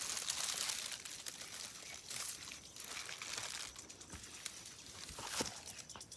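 Plastic bag crinkling and rustling in uneven bursts, faint, with a few light clicks, as ripe tomatoes are picked into it.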